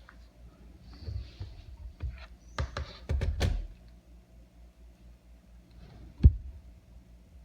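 Typing on a computer keyboard: a short flurry of key clicks with heavier low thumps, then one sharp thump about six seconds in.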